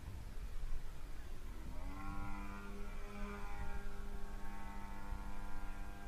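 RC model airplane's motor running as a steady pitched drone that comes in and glides up slightly about two seconds in, then holds its pitch, over a low rumble.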